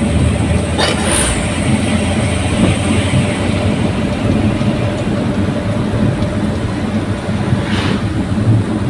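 Daihatsu Gran Max pickup on the move: a steady low engine and road rumble, with two brief rushing sounds, about a second in and near the end.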